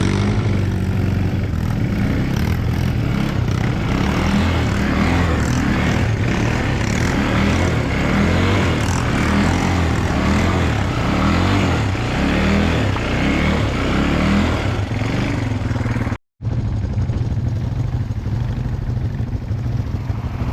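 ATV engine running under way, its note wavering as the throttle shifts, with rushing noise over it. It breaks off for an instant about three-quarters of the way through.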